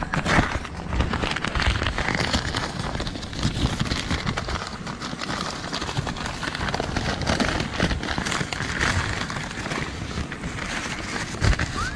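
White paper wrapping being pulled open and handled, crinkling and rustling throughout.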